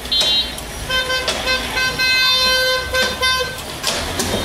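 Vehicle horns honking in street traffic: a short high beep near the start, then a longer steady horn blast lasting about two and a half seconds. Metal spatulas clink and scrape on an iron griddle a few times.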